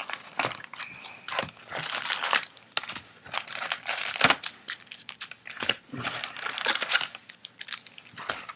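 Crinkling of 2007 Bowman Chrome card-pack wrappers and rustling of the cardboard hobby box as the packs are lifted out and stacked, with one sharp tap about four seconds in.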